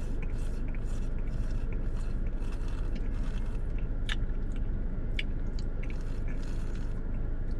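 Sucking and slurping on a milkshake straw that is split and lets air in, heard as a run of short, quiet mouth and straw noises with a sharper click about four seconds in. A steady low hum sits underneath.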